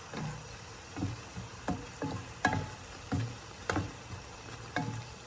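Spatula scraping and knocking against a frying pan while vegetables and mushrooms are stir-fried, about eight strokes with a short metallic ring after some, over a steady sizzle.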